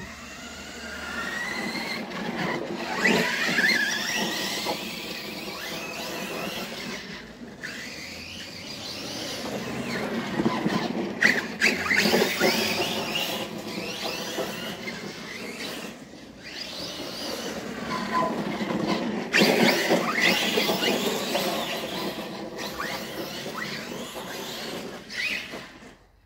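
Electric motors of two radio-controlled cars, an Arrma Kraton and a Helion Four10, whining as they accelerate and slow across the grass. The high-pitched whine rises and falls over several runs, dropping away briefly a few times.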